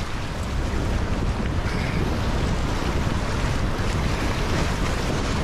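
Steady rushing of whitewater in a river rapid, with heavy wind buffeting on the microphone that adds a low rumble.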